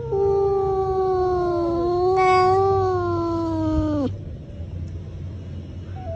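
Domestic cat yowling in one long drawn-out caterwaul, the aggressive cry of a cat squaring up to another cat. The cry holds its pitch, turns harsher briefly in the middle, then slides down and breaks off about four seconds in, over a low hum.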